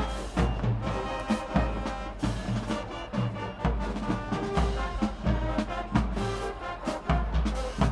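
High school marching band playing, with a brass section over bass drums and snare in a steady beat.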